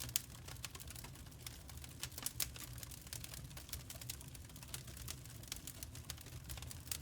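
Firewood fire crackling: irregular sharp pops and snaps over a steady low rumble.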